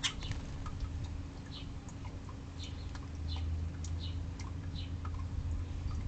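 House sparrows chirping: a series of short, high chirps, about one a second, over a steady low hum. There is a sharp click at the start.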